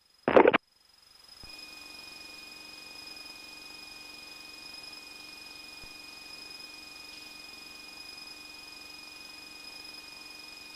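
Faint steady hiss in the cockpit intercom audio, carrying a steady high-pitched electrical whine and a low hum, fading in about a second and a half in after a brief clipped scrap of voice.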